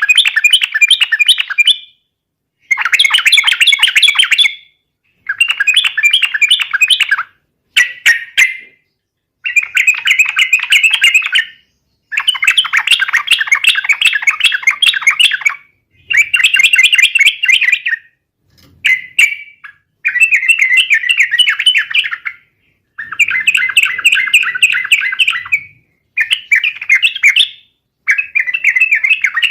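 Yellow-vented bulbul (trucukan) singing in repeated loud bursts of rapid, bubbling chattering notes. Each burst lasts one to three seconds, with a short pause between bursts, about a dozen times over.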